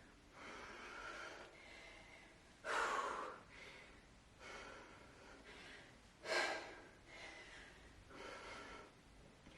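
A woman breathing hard during a set of kettlebell rows to deadlifts, with two sharp, louder exhales about three and a half seconds apart and quieter breaths between.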